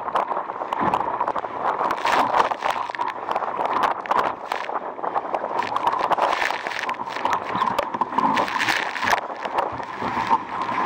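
Wind and water noise aboard an RS Aero racing dinghy sailing hard in strong wind: a steady rush with a rapid, irregular run of slaps and knocks from waves against the hull and gusts on the microphone.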